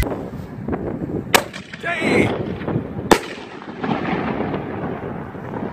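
An FMJ mini artillery shell firing: a sharp bang as it lifts from its tube about a second in, then a louder bang as the shell breaks overhead nearly two seconds later. Wind noise on the microphone runs under both.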